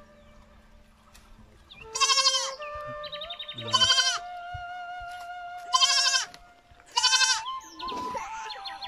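Young kid goat bleating loudly four times, each call about half a second long, over faint background music with held notes.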